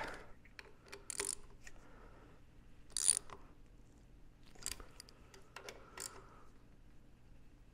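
Hand socket ratchet clicking in a few short strokes, tightening the fork's triple-clamp pinch bolts by feel. The loudest stroke comes about three seconds in.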